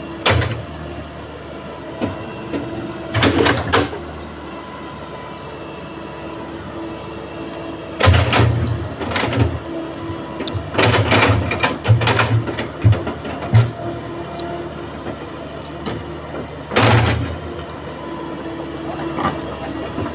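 Backhoe's diesel engine running steadily, with several bursts of heavier engine sound and loud clanking and rattling as the machine works, the busiest stretch in the middle.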